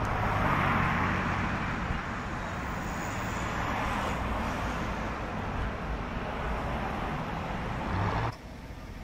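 Street traffic: vehicles passing by with tyre and engine noise that swells and fades a few times over a steady low engine hum. It cuts off suddenly about eight seconds in.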